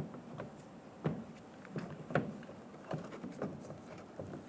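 Scattered light clicks and knocks of a replacement exterior door handle being worked into its opening in a car door, about one every second.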